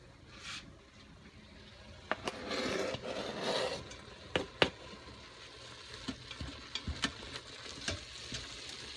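A chef's knife scrapes diced bell pepper off a plastic cutting board into a hot stainless Instant Pot inner pot, with a few sharp knocks about two and four and a half seconds in. Then a spatula stirs ground beef and peppers sautéing with a light sizzle, with scattered small clicks against the pot.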